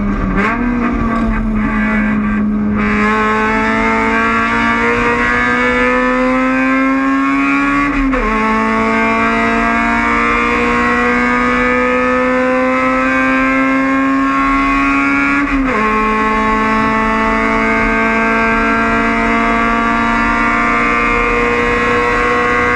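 Honda Civic race car's four-cylinder engine at full throttle. After a brief fall in pitch at the start, the note climbs steadily through the revs, with quick upshifts about 8 and 16 seconds in, each dropping the pitch before it rises again.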